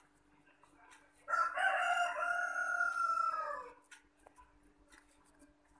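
A rooster crowing once: a single call about two and a half seconds long that drops in pitch at its end. Faint clicks come from hands working soft potato dough.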